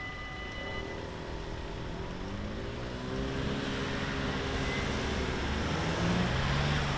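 Level-crossing warning bells ring steadily and stop about a second in as the barriers finish rising. Then cars pull away across the crossing, their engines rising and falling in pitch as they accelerate through the gears, growing louder as they pass close by near the end.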